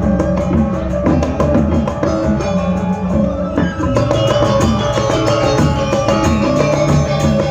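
Balinese gamelan playing a piece in the bebonangan style: fast, dense strokes on tuned gongs and gong-chimes with drums. The low part fills out about four seconds in.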